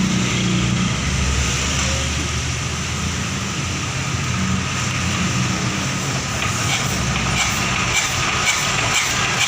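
Dong Feng S1110 single-cylinder diesel engine running steadily with a low, even drone, just started on a test run after an overhaul.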